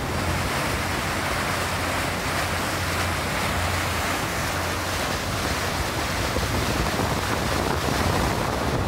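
Tour boat's hull cutting through lake water: a steady rushing hiss of spray and bow wave, over a low steady hum from the boat's engine.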